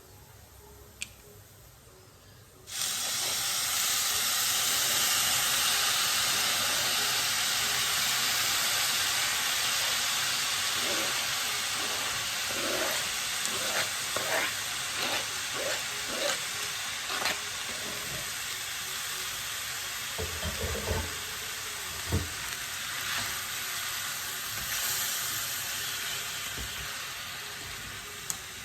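Food going into a hot pan of cooking oil, starting a loud sizzle suddenly about three seconds in that slowly eases off. Midway a spoon stirs and knocks against the pan several times.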